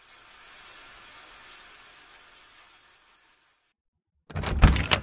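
Steady rain noise that fades in and then fades out after about three seconds. Near the end comes a loud, short clatter of knocks.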